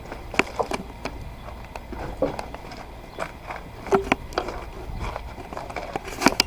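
Irregular light clicks and knocks, a few at a time, over a faint hum.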